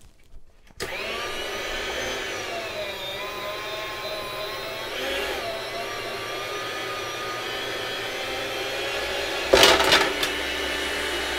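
Chef's Choice 609 electric meat slicer starting about a second in and running with a steady whine, its pitch dipping a little as the blade cuts through a log of hard salami. Near the end the thick cut slice drops onto the tray with a loud thump.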